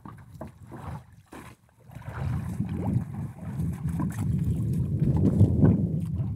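A fishing boat's engine running with a steady low rumble, with a few knocks. The sound drops almost to nothing for about half a second near the start, then the engine carries on.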